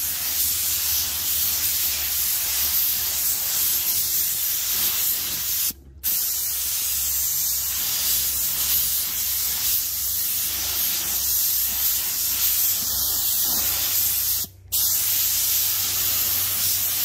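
Gravity-feed automotive paint spray gun spraying red base coat: a steady, loud hiss of air and atomised paint that cuts out briefly twice, about six seconds in and again near fourteen and a half seconds, as the trigger is let off between passes.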